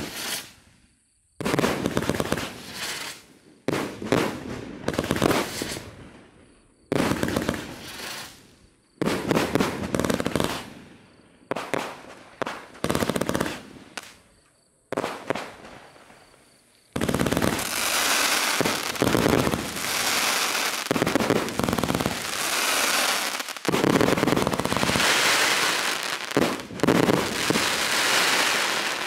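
A 300-shot, 30 mm firework battery firing rapid volleys of shots and bursts in short salvos of a second or two with brief gaps. About halfway through it goes into near-continuous firing: the closing finale salvos.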